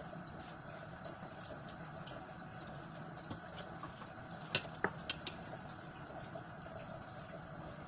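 Kitchen tap water running into a metal strainer in the sink, with small scattered clicks and taps as shrimp are cleaned with a knife. A few sharper clicks come close together about halfway through.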